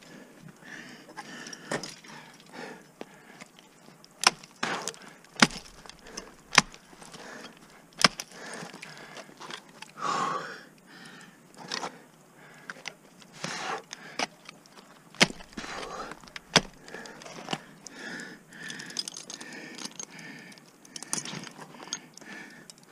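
Black Diamond ice axes striking and biting into a frozen waterfall column, with irregular sharp hits every second or few. Metal climbing hardware clinks between strikes.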